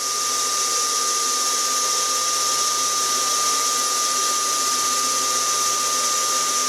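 An 18-inch HP lapidary rock saw running steadily, its motor, belt pulley and diamond blade spinning with a steady high whine over a hiss. The dull blade is only just engaging the stone.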